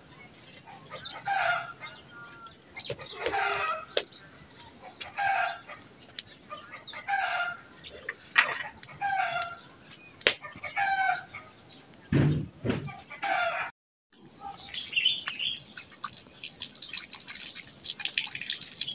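Domestic rooster calling again and again, about nine short calls a second or so apart. Near the end, after a cut, water from an outdoor tap splashes onto a stone slab.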